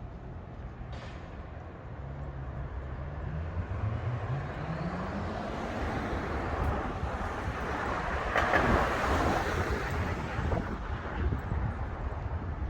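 Street traffic: a car engine climbs in pitch as it accelerates, then a vehicle passes close by with a swell of engine and tyre noise about eight seconds in, fading after.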